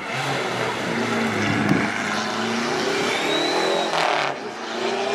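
Rally car engine revving hard through a hairpin, its pitch rising and falling with lifts and gear changes, with a brief loud burst about four seconds in.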